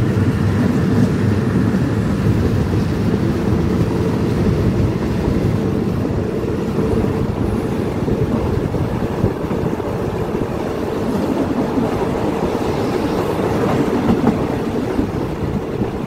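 Passenger carriages of a moving train heard from alongside the carriage: a steady, loud, low rumble of the wheels running on the rails.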